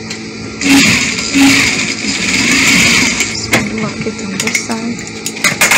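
Sewing machine stitching a seam in a run of about two and a half seconds, then stopping. A few sharp clicks and knocks follow, bunched near the end.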